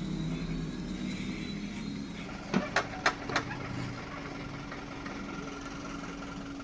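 A vehicle engine running steadily, with four sharp metallic knocks in quick succession about two and a half seconds in.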